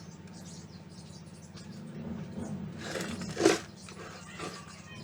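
Small birds chirping again and again over a steady low hum, with a short, louder call about three and a half seconds in.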